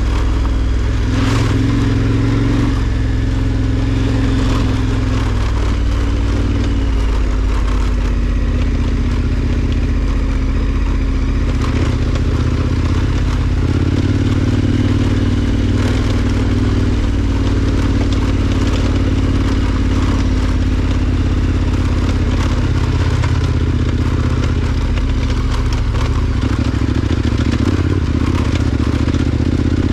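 KTM 1290 Super Adventure R's V-twin engine running at low, varying revs, the pitch rising and falling gently, while the bike rides over dirt and loose rocks. Tyres and stones clatter and scrape throughout.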